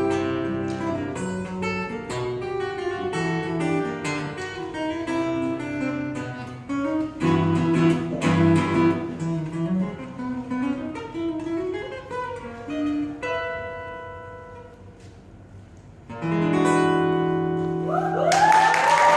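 Solo steel-string acoustic guitar played fingerstyle, with plucked melody over bass notes, thinning to a quiet, slower passage and then ending on a full ringing final chord. Audience applause and whistles break out just before the end.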